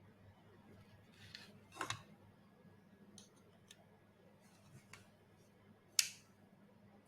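Scattered small clicks and scrapes of plastic robot-head parts and small tools being handled during assembly, with a brief scraping cluster about two seconds in and one sharp click near the end.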